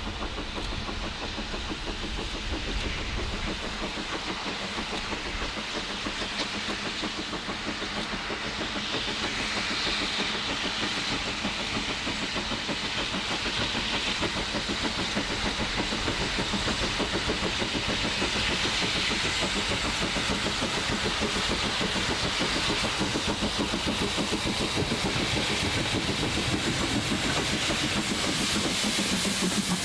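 LMS Ivatt Class 2MT 2-6-0 steam locomotive approaching and running past with a train of coaches, with a steady hiss of steam and a fast, even rhythm. The sound grows louder as the train draws close near the end.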